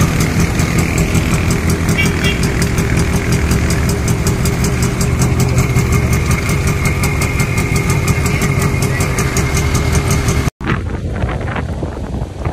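Motor vehicle engines running steadily at close range, with a low hum and a wavering drone. About ten and a half seconds in, the sound cuts off abruptly and is replaced by heavy rain.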